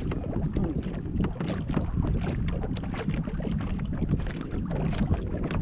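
Wind buffeting the microphone in a steady low rumble, with small waves slapping irregularly against the hull of a fishing boat.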